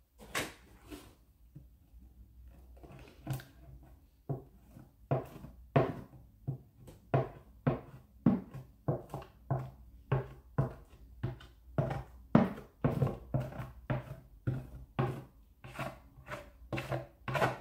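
Pritt glue stick rubbed over cardboard in short back-and-forth strokes, a few at first and then a steady run of about two a second from about five seconds in.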